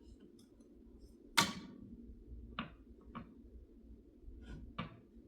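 A few sharp knocks: one loud knock about a second and a half in, then four lighter taps.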